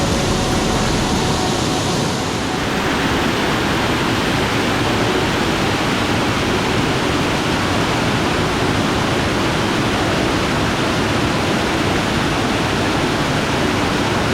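Waterfall in full flow, a loud, steady rush of falling water.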